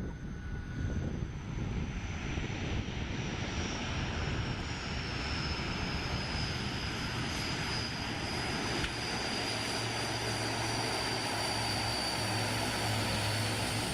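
Large jet airliner's engines running at high power: a steady rush that builds over the first couple of seconds, with a high whine slowly falling in pitch and a low rumble growing near the end.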